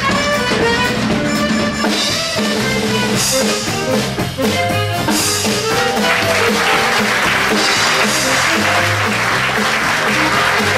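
Upbeat show music with drum kit and brass, joined by audience applause that swells in about six seconds in.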